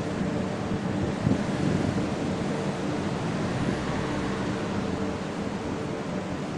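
Steady engine and machinery hum on a ferry's enclosed car deck, a constant rumble carrying a few steady low tones, with a brief louder bump a little over a second in.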